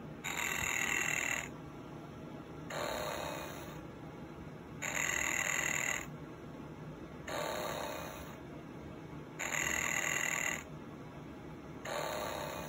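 Snoring Disney Goofy plush toy playing its electronic snore: six snore sounds about two seconds apart, alternating between two slightly different breaths, one higher and brighter, one lower.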